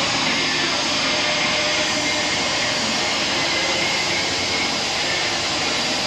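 Modified pulling tractor's engine running flat out under load as it drags the weight-transfer sled, a loud, steady, even sound with no let-up.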